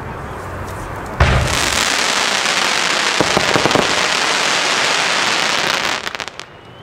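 Pyro Artist Time Rain Willow Crossette single-shot firework bursting with a loud bang about a second in. Its splitting stars then hiss and crackle densely for about five seconds, fading out in a few scattered pops.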